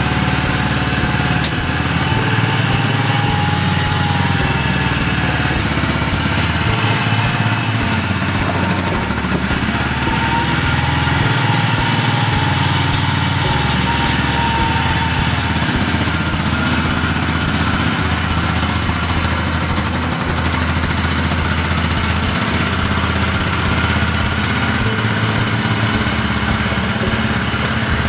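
Small lawn-tractor loader's engine running steadily while it moves and drives off, its pitch rising and falling a little early on and again about ten seconds in.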